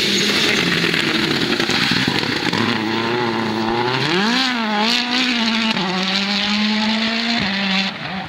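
Citroën C3 WRC rally car's turbocharged 1.6-litre four-cylinder engine at full throttle, passing and pulling away. Its pitch climbs and drops through quick gear changes, and it grows fainter near the end as the car drives off.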